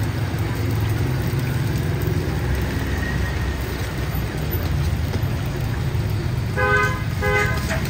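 Flat cakes frying in shallow oil in a wide steel pan, over a steady low rumble. A horn toots twice in short blasts about seven seconds in.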